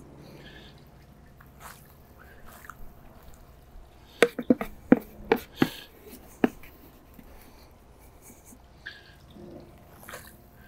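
A plastic scoop knocking and scraping in a plastic bucket while fine borate powder is scooped out: a quick run of about seven sharp knocks between about four and six and a half seconds in, with faint scattered small sounds around them.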